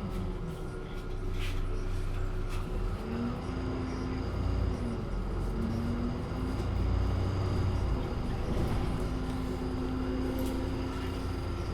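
MAN Lion's City city bus heard from inside the passenger cabin while driving: a steady low engine and drivetrain rumble with a pitched whine that rises and falls several times as the bus speeds up and slows. A few faint rattles or clicks come through.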